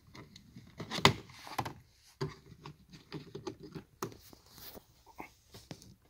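Hand handling the plastic trim cover of the OBD2 port under a 2007 Ford Mondeo's dashboard: a string of clicks and knocks, the loudest about a second in.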